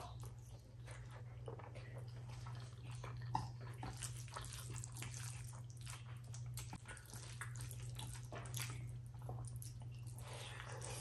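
Close-up wet squelching and smacking of eating by hand: fingers kneading rice with dal and mashed potato, and a mouth chewing and smacking on big mouthfuls, with a sharper click a few seconds in. A steady low hum sits underneath.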